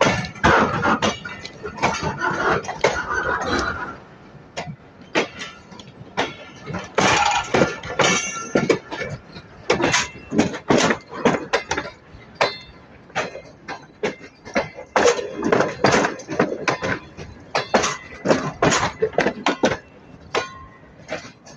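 Irregular rapid clinking and clattering knocks, many sharp hits close together, with a person's voice in the first few seconds and again about seven seconds in.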